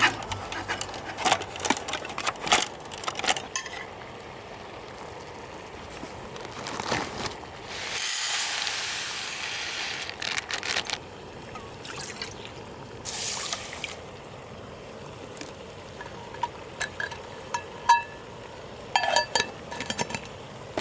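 Liquid being poured twice, each pour lasting a second or two, amid scattered clicks, knocks and short metallic clinks from things being handled.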